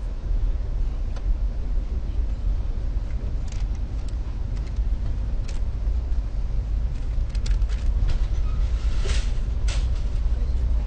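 Passenger train in motion: a steady low rumble, with scattered sharp clicks and brief rattles.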